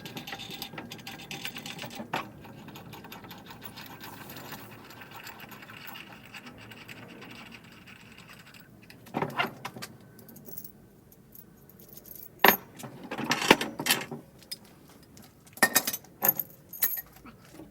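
Metal objects being handled: light metallic clinking and rattling, then a few sharper knocks and clatters in the second half.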